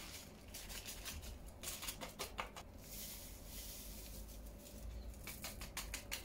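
Faint rustling and light pattering as flour and then baking powder and vanilla sugar are poured from a small paper packet into a bowl of cake batter. The rustles come in clusters, with a soft hiss of falling powder in the middle.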